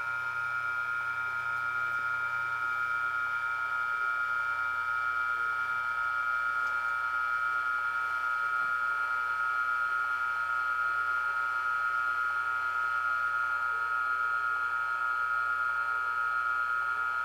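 Steady electronic tone from the ESU sound decoder's small speaker in a Roco BLS Re 475 Vectron model locomotive. It holds one high pitch with a few overtones and swells slightly in the first few seconds.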